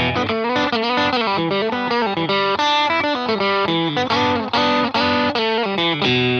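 S-style electric guitar played through an amplifier, a quick melodic line of single notes with some bent or sliding pitches.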